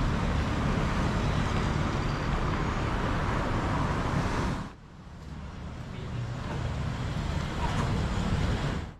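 City street traffic: cars and motorcycles driving past. About halfway through, it cuts abruptly to a quieter street background.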